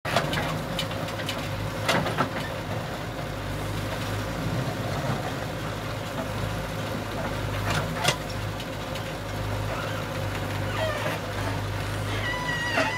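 JCB backhoe loader's diesel engine running steadily as the rear backhoe arm digs into earth, with a few sharp knocks about two seconds in and again around eight seconds in.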